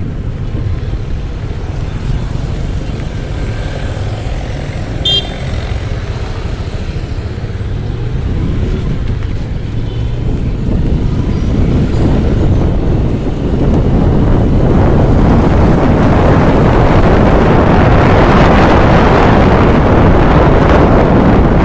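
Wind buffeting the microphone over engine and road noise from a moving bike riding through town traffic, getting louder in the last third as the ride speeds up. A short high beep sounds about five seconds in.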